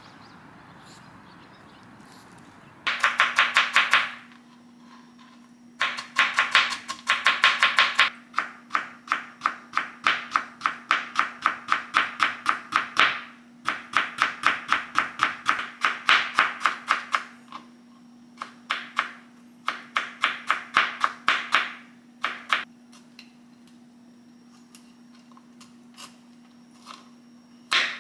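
A knife chopping food on a cutting board in quick runs of strokes, several a second, stopping and starting, with a steady low hum underneath. The chopping ends after about 22 seconds, leaving a few scattered taps.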